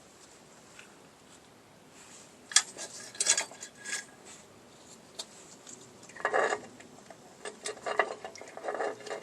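Small steel drum-brake springs and hardware clinking and clicking as they are handled and fitted, in scattered light taps with a denser rattle about six seconds in and more clicks near the end.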